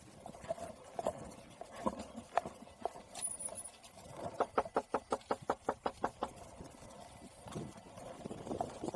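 Footsteps, then a quick, even run of about a dozen knocks on a house door, roughly seven a second, beginning a little after four seconds in.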